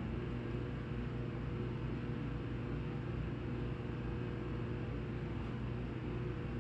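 Steady low machine hum with a few faint steady tones.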